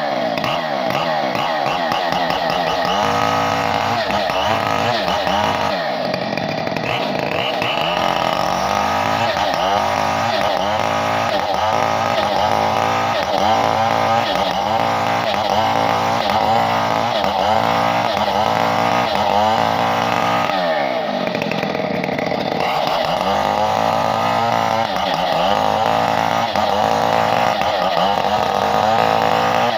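Chainsaw running continuously, its engine pitch rising and falling over and over, about once a second.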